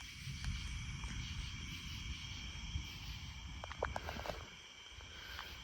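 Thunder from a tornadic supercell rumbling low, with a few sharp crackles a little under four seconds in, the rumble easing off toward the end. A steady chorus of night insects runs underneath.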